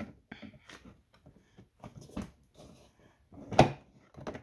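Cordless lawnmower's cutting-height adjuster being worked up a notch: a few light clicks and knocks, then one louder clunk about three and a half seconds in.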